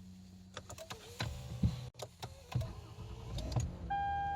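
A quick series of clicks and knocks in the car cabin. Near the end a steady electronic beep from the dashboard comes on and holds.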